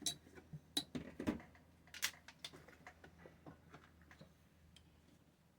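Scattered light clicks and knocks of kitchenware being handled, most of them in the first two seconds, thinning to a few faint ticks.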